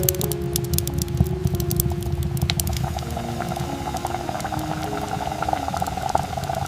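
Food cooking on the stove, sizzling and bubbling steadily, with sharp crackling pops through the first couple of seconds.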